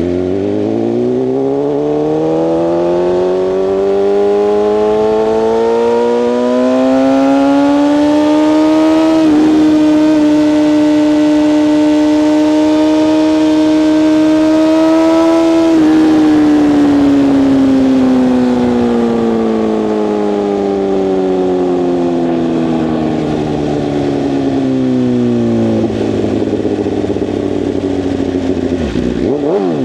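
BMW S1000RR inline-four engine on the move. The revs climb steadily for about nine seconds, break briefly, hold level for several seconds, then fall slowly as the bike slows.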